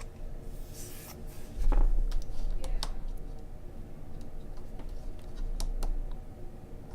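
Irregular clicks and taps of typing on a MacBook Pro keyboard, with a brief rustle about a second in and a louder bump just before two seconds in.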